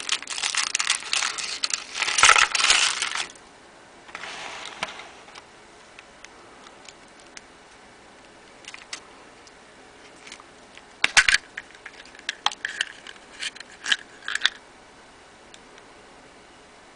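Foil wrapper of a chocolate surprise egg crinkling as it is peeled off, for about three seconds, with a softer rustle a second later. Later a run of small, sharp clicks and clatter of hard pieces being handled.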